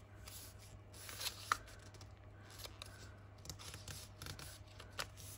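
Brown kraft packaging paper rustling and crinkling as it is folded over and pressed flat by hand, with a few short crackles, the sharpest about a second and a half in.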